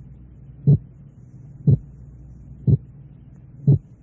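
Heart sounds heard through a stethoscope, beating about once a second (four beats) over a steady low hum. Each beat is a heart sound split into two parts 0.04 seconds apart, too close to be heard as more than a single slightly doubled beat.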